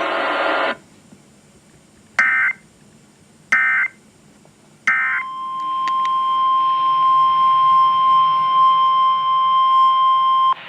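A brief hiss, then three short bursts of EAS SAME digital data tones, a little over a second apart. They are followed by the steady 1050 Hz NOAA Weather Radio warning alarm tone, which holds for about five seconds and cuts off sharply.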